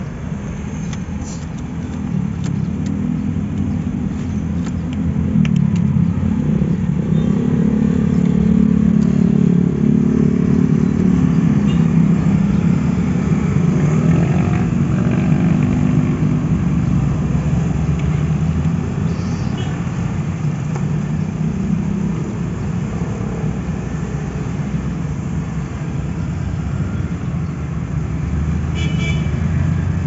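A motor vehicle engine running steadily, swelling louder through the middle stretch and easing back, with a few light clicks over it.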